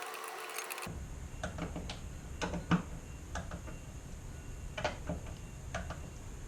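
Torque wrench ratcheting and clicking on the fuel pump bracket bolts as they are brought to 48 inch-pounds. Quick ratchet clicks at first, then a low hum under scattered sharp clicks, the loudest a little under three seconds in.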